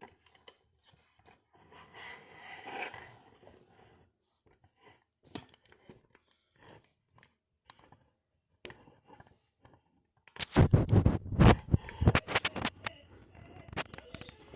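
Scraping and knocking from objects being handled, faint and scattered at first, then a dense, loud burst of it about ten seconds in that lasts a couple of seconds.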